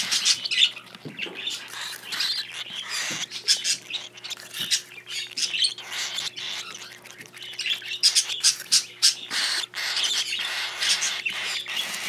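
Hand-fed cockatiel chicks giving many short, raspy begging calls while they are fed millet paste from a spatula.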